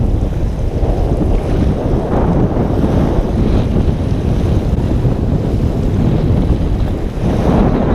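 Wind buffeting the microphone in a loud, steady rumble, with waves washing and breaking at the shoreline underneath.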